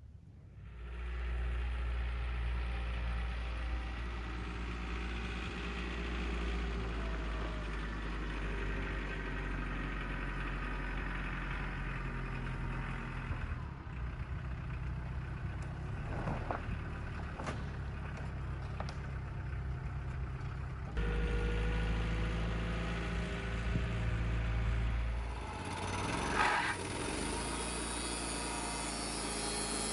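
Wood-Mizer portable band sawmill running: a steady engine drone with the band blade sawing through a cedar log. The level and tone shift abruptly a couple of times, and a few sharp clicks sound near the middle.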